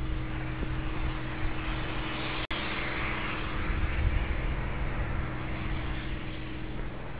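Outdoor noise with a steady low drone and rumble, swelling into a louder hiss for a couple of seconds after a brief dropout about two and a half seconds in.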